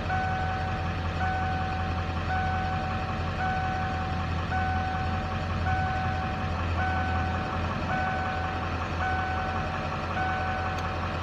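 Ford 7.3 IDI V8 diesel in a 1996 F-250 idling rough, which the owner is trying to diagnose. An electronic warning chime beeps steadily about once a second throughout.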